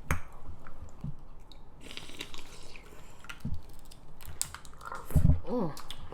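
Close-miked chewing and wet mouth sounds of eating seafood, with scattered small clicks. About five seconds in comes a loud low thump, the loudest sound here, followed by a brief hummed vocal sound.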